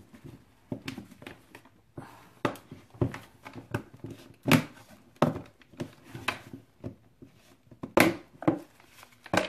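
Plastic lid being pried off a bucket of cocoa butter by gloved hands: a run of irregular plastic clicks, knocks and crinkles, with sharper snaps about halfway and near the end.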